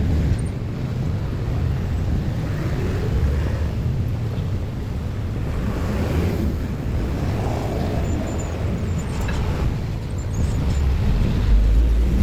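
Steady low rumble of road vehicles passing, with wind buffeting the microphone.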